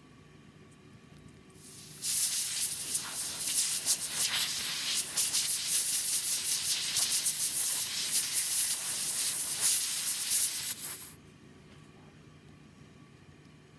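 Dental three-way air-water syringe blowing compressed air over a prepared molar, drying the cavity after the acid etch has been rinsed off. The hiss starts about two seconds in, wavers in strength, and cuts off sharply about eleven seconds in.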